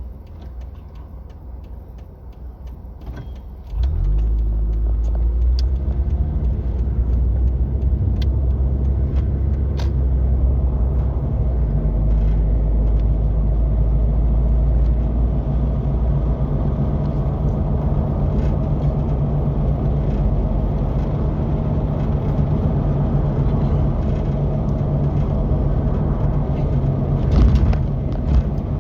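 A few clicks over a quiet background, then about four seconds in a side-by-side's engine starts abruptly and runs steadily.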